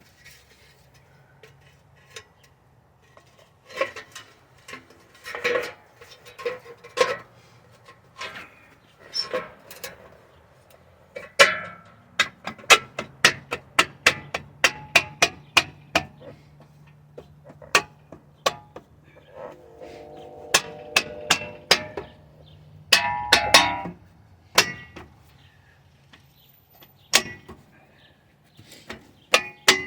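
Metal parts on the car clicking and clanking as they are worked by hand to fit them back on, in irregular runs of sharp taps, some of them ringing. The taps come thickest in the middle, with a louder burst of clanks a little past two-thirds of the way through.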